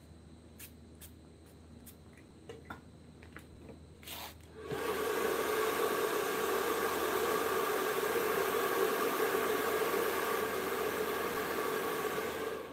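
Light clicks and taps of handling, then about five seconds in a power tool starts and runs steadily for about eight seconds, a whine over a hiss, before it stops.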